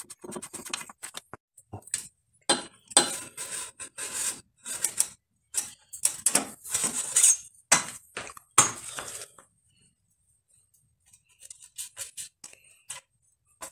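Metal bicycle parts clinking, clicking and scraping as they are handled and taken off the frame, in irregular bursts. It goes almost quiet about ten seconds in, with a few faint clicks after.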